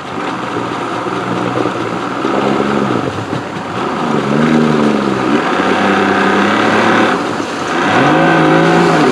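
Jon boat's outboard motor being throttled up and down in several surges, its pitch rising and falling each time while the propeller churns the water.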